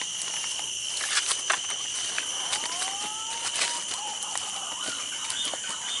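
Steady high-pitched drone of forest insects, with the crackle and snap of twigs and leaves underfoot as someone pushes through undergrowth. The snaps are loudest about a second in. A brief rising whistle is heard about halfway through.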